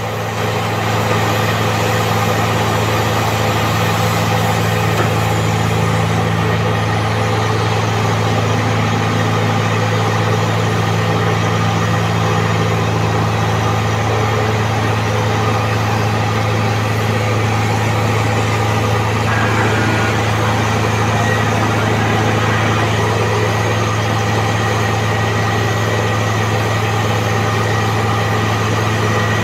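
Hydraulic excavator's diesel engine running steadily at a constant pitch, with a strong low hum.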